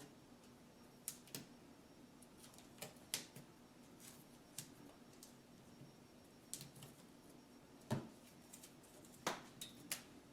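Sparse, irregular small clicks and taps from hand work on a small wall fixture, about ten in all, with two sharper knocks in the second half, over a faint steady hum.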